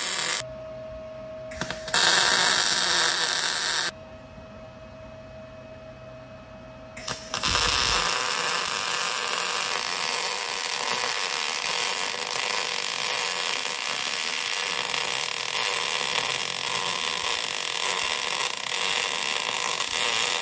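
Welding the engine mount pieces. Two short welding bursts of crackling hiss in the first four seconds, then one long continuous weld bead from about seven seconds in, with a faint steady hum in the pauses between.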